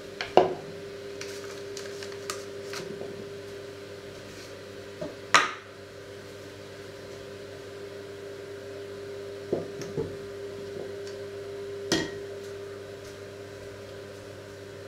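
Kitchenware being handled and set down on a wooden worktop, a coffee filter holder, a mug and a jar: a handful of short sharp knocks and clatters, the loudest near the start and about five seconds in, over a steady low hum.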